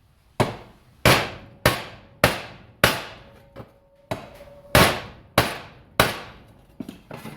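Hand hammer striking the bent steel rear bumper of a 1949 Chevrolet Deluxe to straighten it. About eight hard blows come roughly every half second, each ringing briefly, with a short pause near the middle and a few lighter taps near the end.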